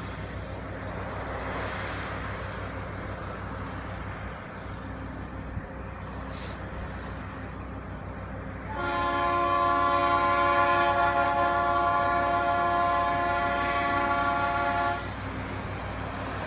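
Mount Washington Cog Railway diesel locomotive running with a low steady rumble, then sounding its horn about nine seconds in: one long blast of several tones together, held for about six seconds before cutting off.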